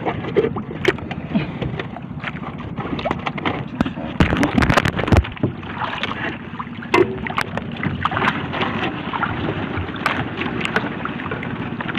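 Fishing gill net being paid out by hand over the side of a small boat into the sea. The mesh and float line rustle and slap over the gunwale, with irregular knocks against the hull and small splashes, over a steady wash of water and wind.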